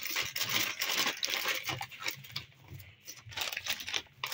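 Thin plastic bag crinkling and rustling as corn flour is shaken out of it onto raw chicken pieces in a bowl. An irregular crackling rustle, thinning out past the middle.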